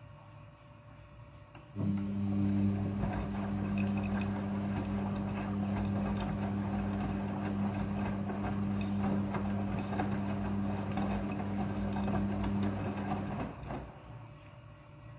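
Midea front-loading washing machine running: a steady electric motor hum with a rushing, watery noise over it. It starts about two seconds in and cuts off near the end.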